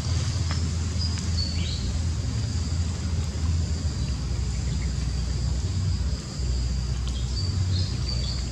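Outdoor ambience: a steady low rumble, with a few short high chirps from a bird about a second in and again near the end.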